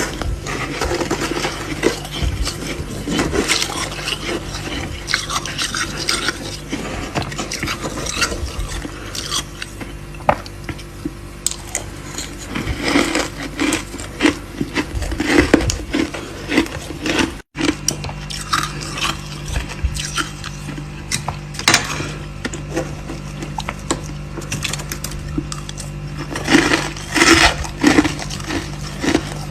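Frost being scraped and chipped inside a mini freezer, many short scrapes and clinks like a metal utensil against ice, over a steady low hum. The sound breaks off for an instant about halfway through.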